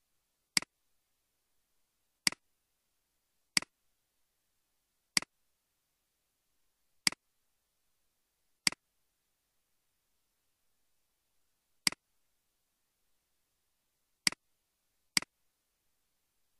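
Computer mouse button clicked nine separate times at uneven intervals, each a sharp press-and-release tick.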